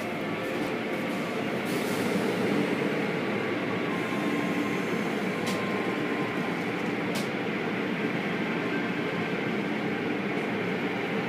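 Automatic car wash heard from inside the car: a steady rumble of water spray and cloth wash strips sweeping over the glass, with three brief sharp knocks.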